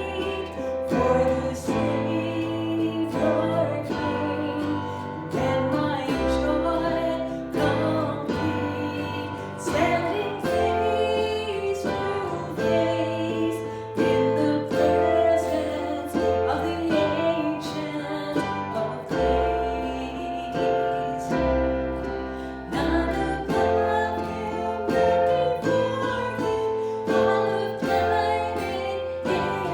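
Music: a song with singing over strummed guitar and a bass line, with a steady beat.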